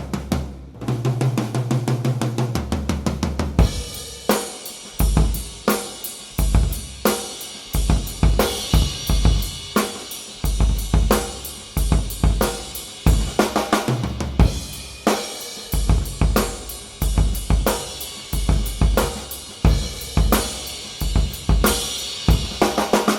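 Vintage Gope acrylic drum kit played, with a 14x5 aluminium Pinguim snare and Paiste 505 cymbals. It opens with a quick run of low drum strokes, then about four seconds in settles into a full beat of bass drum, snare and ringing cymbals.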